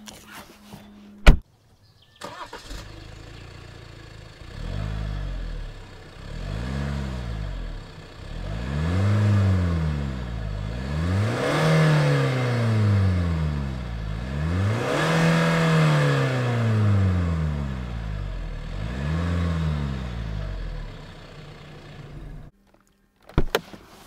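Alfa Romeo Giulia's 2.2-litre four-cylinder diesel started after a sharp thump, then revved repeatedly at standstill: about six throttle blips rising and falling in pitch, the middle two the highest and loudest. The sound cuts off suddenly near the end.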